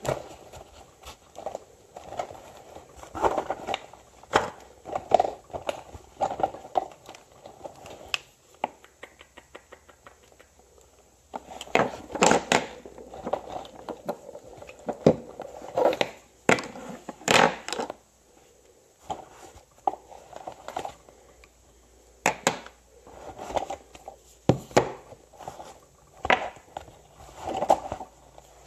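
Makeup products and packaging being handled and taken out of a makeup case: rustling and crinkling with irregular clicks and knocks, and a quick run of fine ticks about nine seconds in.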